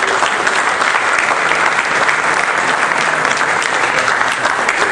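Audience applauding steadily: dense clapping from a seated crowd.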